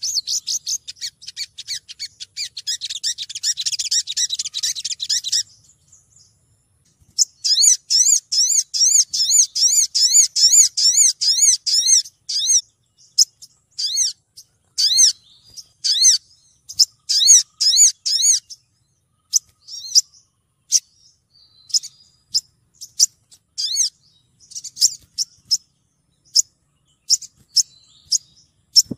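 Female olive-backed sunbird calling to draw males: a fast, high twittering trill for about five seconds, then after a brief pause a run of high arched chirps at about four a second, breaking up into scattered short bursts of chirps for the rest of the time.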